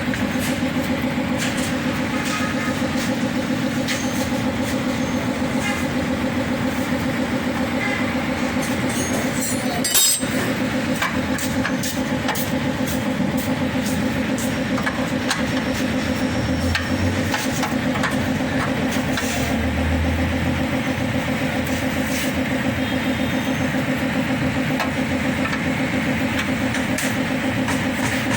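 Steady drone of an engine or motor running, with a fast even pulse, overlaid by scattered light tool clicks and one sharp metallic knock about ten seconds in.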